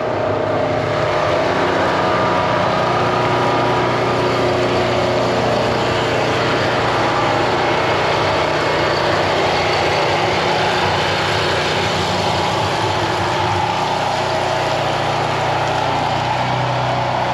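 A motor running steadily: a constant hum with an even hiss over it.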